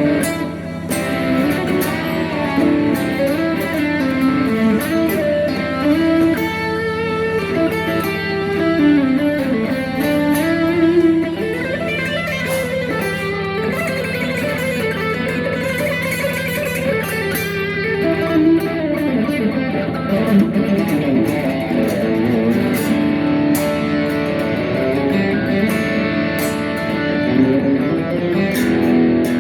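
Rock music led by electric guitar, a moving melodic line over a steady held low note.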